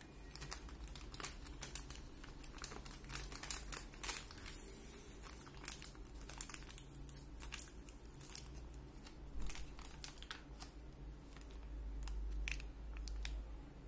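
Foil-lined plastic pouch of Nestlé Everyday milk powder being crinkled and torn open by hand: irregular crackles and rips that thin out near the end.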